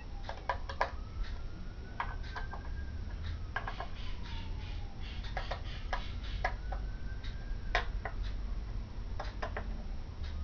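Small screwdriver driving the tiny spring-loaded heatsink screws into a motherboard, giving sharp clicks in little clusters of two to four. A faint tone slowly slides down and up in pitch behind them.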